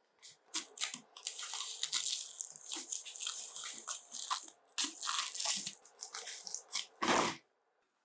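Cardboard box and plastic packaging of a new elliptical trainer being cut and torn open: irregular crackling, tearing and scraping, with a louder knock about seven seconds in.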